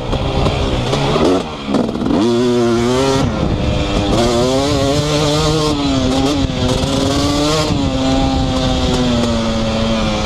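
2018 KTM 250SX two-stroke dirt bike with an FMF Powercore 2 silencer, ridden hard around a track. The engine revs up and down, with a sharp drop and climb in pitch about two seconds in, then a long steady pull that eases off near the end.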